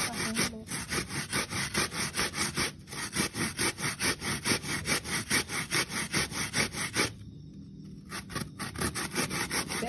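Young coconut being grated by hand on a metal grater: quick, even rasping strokes at about four a second, pausing for about a second some seven seconds in, then starting again.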